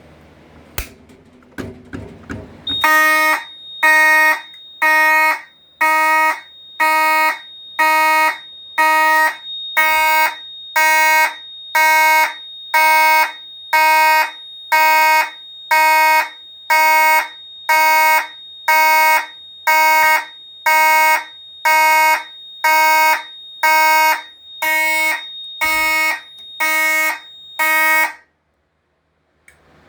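Fire alarm horn sounding in alarm, set off from a manual pull station after a few clicks. It gives even buzzy pulses at about one a second over a steady high tone. It cuts off abruptly near the end as the alarm is silenced.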